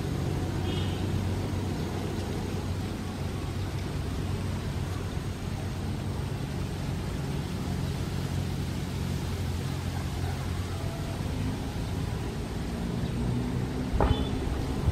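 A steady low engine rumble with a constant low hum. A short sharp click comes near the end.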